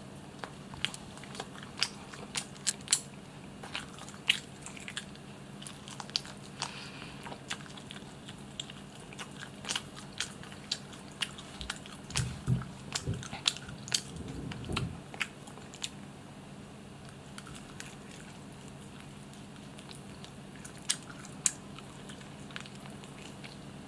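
Close-miked chewing and biting on barbecued chicken: wet mouth clicks and crunches, dense for the first two-thirds and then sparse, with a few dull low thumps midway.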